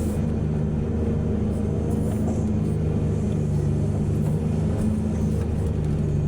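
Heavy diesel engine of earthmoving machinery running steadily under load, with a low, even hum.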